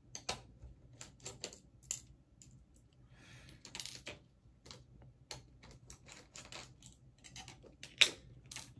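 Irregular small clicks and taps of a circuit board, a screwdriver and tiny machine screws being handled on a wooden desk, with one sharper click about 8 seconds in as a screw is set down.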